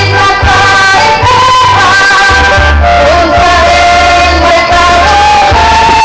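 Women's group singing a melody over loud amplified musical accompaniment with a heavy bass, played through outdoor loudspeakers.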